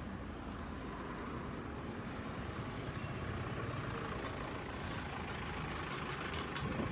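Steady background noise of road traffic, with no distinct events.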